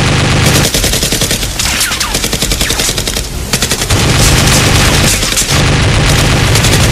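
Machine-gun sound effect: rapid, continuous automatic gunfire in long bursts, with a short lull about halfway.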